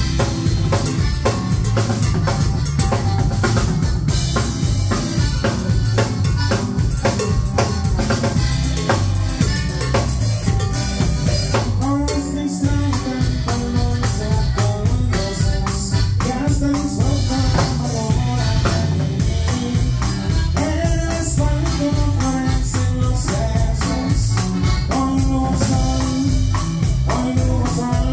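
Live band playing an instrumental passage: accordion melody over a drum kit keeping a steady beat with snare and bass drum, and a bass line underneath.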